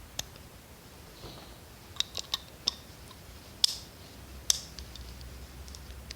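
Small parts of a disassembled Craftsman hand ratchet clicking as they are handled: about seven sharp, irregular clicks, several of them bunched together around two seconds in.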